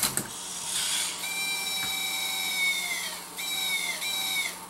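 Zoomer robot toy dog doing its pee trick: a short noisy whir, then a long, steady electronic tone from its speaker that falls away at the end, followed by two shorter tones of the same kind.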